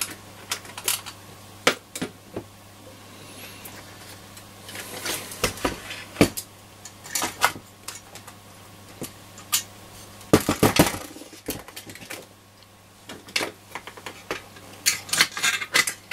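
Scattered metallic clinks, clicks and knocks as a Roberts R707 transistor radio's metal chassis and its circuit module are handled and worked loose by hand, with a cluster of louder knocks about ten seconds in.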